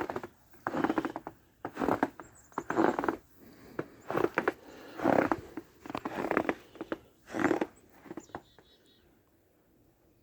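Footsteps crunching in fresh snow, about one step a second, stopping about eight seconds in.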